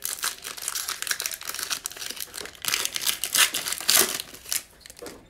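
Foil wrapper of a trading card pack being torn open and crinkled by hand, a dense crackling that is loudest about three to four seconds in and dies away near the end.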